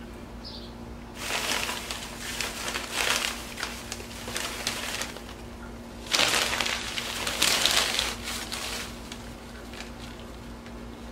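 Paper packing crinkling and rustling as it is handled, in two spells of crackly rustling, the second one, starting about six seconds in, the loudest.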